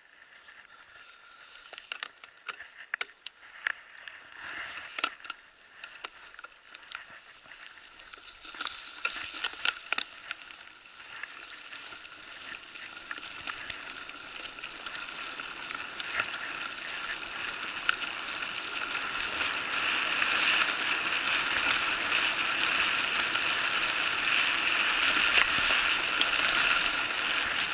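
Electric bicycle riding over a forest dirt trail: tyres crunching and bike parts clicking and rattling, with the rolling noise growing steadily louder as the bike picks up speed from a standstill to over 30 km/h.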